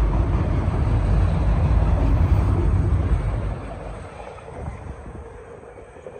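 Auto-rack freight train rolling past, a loud low rumble of cars on the rails that eases off about three and a half seconds in.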